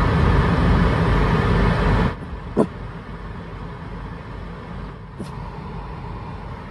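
Steady vehicle noise heard from inside a car cabin. It drops sharply about two seconds in, and a short rising squeak follows about half a second later.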